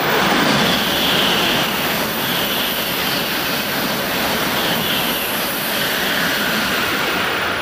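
Shinkansen bullet train running past the platform at speed: a loud, steady rushing whoosh of air and wheels that swells up at the start and eases off near the end.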